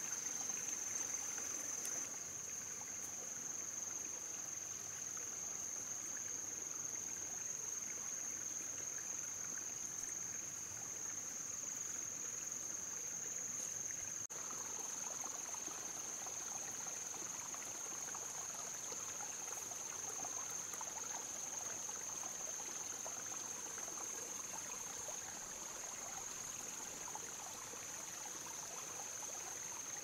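Rainforest ambience: a steady high-pitched insect drone over a soft, even hiss.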